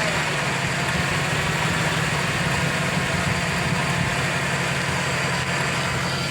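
2007 GMC truck's 5.3 V8 idling steadily with a constant whine from the lower front of the engine, which the owner suspects is the harmonic balancer or the water pump.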